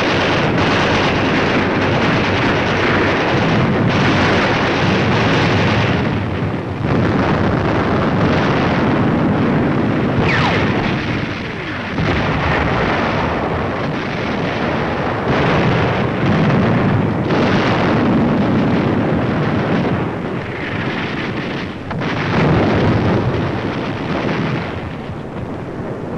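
Battle soundtrack of artillery shells exploding one after another in a dense, unbroken din, with a falling shell whistle a little past the middle.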